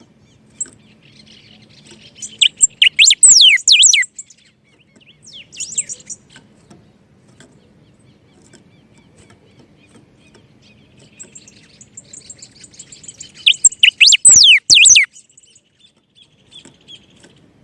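Songbirds singing: two loud bursts of quick, downward-sweeping whistled notes, about two seconds in and again near the end, with softer high twittering between them.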